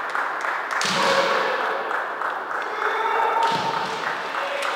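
Kendo fighters shouting drawn-out kiai while pressed together at close range, with two heavier thuds, about a second in and again at about three and a half seconds.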